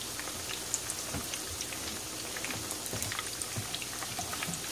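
Battered chicken pieces deep-frying in a pan of hot oil: a steady sizzle full of small crackles and pops.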